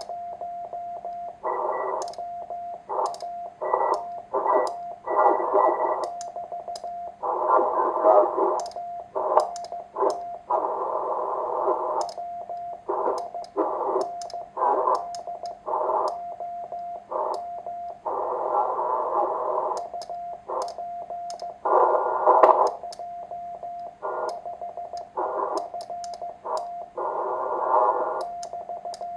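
Morse code tone of about 700 Hz from a homebuilt 1Watter QRP transceiver, keyed in dots and dashes over filtered receiver hiss. The hiss surges in and cuts out in blocks, with sharp pops: the radio's AGC pumping and popping badly while he sends.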